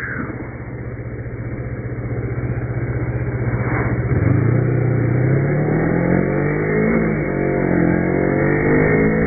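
A 2007 Kawasaki Ninja 250's parallel-twin engine under way, holding a steady note for about four seconds. The motorcycle then accelerates, its pitch climbing, dipping briefly around seven seconds in at a gear change, and climbing again as it gets louder.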